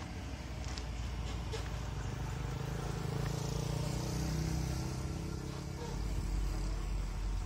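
Road traffic at an open railway level crossing: vehicle engines hum steadily as they pass, and a deeper low engine rumble from an approaching truck comes in about six seconds in.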